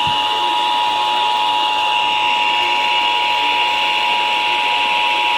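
Emergency Alert System attention signal: two steady tones at 853 and 960 Hz sounding together, the loud alert tone that opens a Required Monthly Test on broadcast radio.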